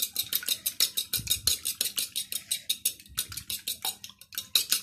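A metal fork beating raw eggs in a plate: rapid, even clicks of the fork tines striking the plate, about eight a second, with a few soft low thuds.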